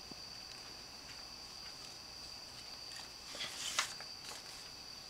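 Paper pages of a small homemade book being turned by hand: a few faint rustles and clicks, the clearest about three and a half to four seconds in, over a faint steady high-pitched whine.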